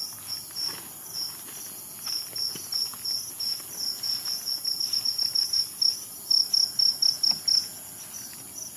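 A cricket chirping in short, evenly spaced high-pitched pulses; from about four seconds in the chirps come faster and louder, then stop abruptly about seven and a half seconds in.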